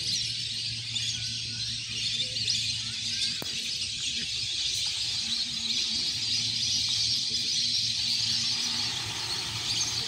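A large flock of lesser whistling ducks on a lake, making a dense, unbroken chorus of high whistling calls. A faint low hum runs underneath.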